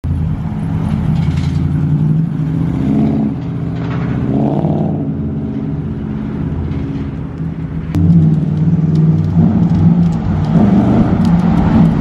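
Ford Crown Victoria Police Interceptor's 4.6-litre single-overhead-cam V8 running as the car drives along the street, with a rising rev near the middle. The exhaust note gets louder about two thirds of the way in as the car comes back toward the listener.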